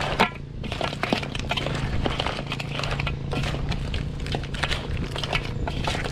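Cooked crab shells clattering and knocking against a large metal wok, with a wooden spatula scraping through them as the crabs are stirred and tossed: a run of irregular clicks and knocks with crackling under them.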